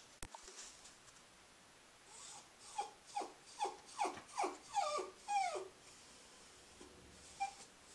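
Cairn Terrier whining: a quick string of about eight short whimpers, each falling in pitch, then one more near the end. This is her habitual after-dinner whining while carrying her toy, which a vet found nothing wrong with. A sharp click sounds just after the start.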